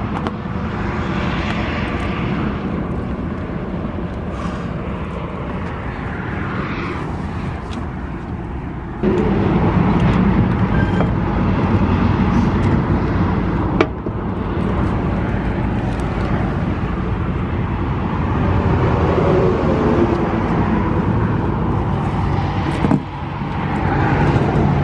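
Steady rumble of vehicle and wind noise beside a highway, stepping louder about nine seconds in, with one sharp click about 14 seconds in.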